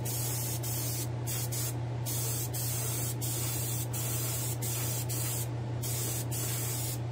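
Airbrush spraying paint, a steady hiss broken by about a dozen brief pauses as the trigger is let off and pressed again, over a steady low hum.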